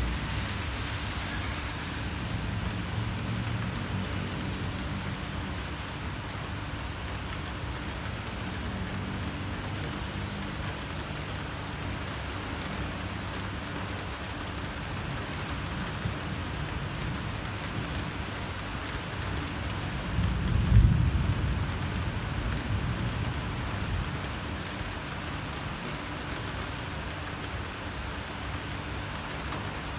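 Steady rain falling, with a low rumble of thunder about two-thirds of the way through that swells sharply and fades over a few seconds.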